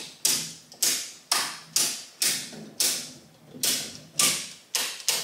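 Branch circuit breakers in a home breaker panel being snapped on one after another: about ten sharp clicks, roughly two a second, each fading quickly.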